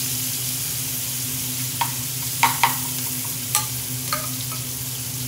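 Grated onion sizzling steadily in hot mustard oil in a frying pan, with a few sharp clinks of a metal slotted spoon against the pan and bowl about two seconds in and again around three and four seconds.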